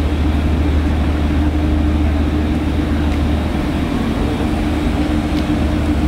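A large engine running steadily at idle: a loud, even low drone with a steady higher hum above it.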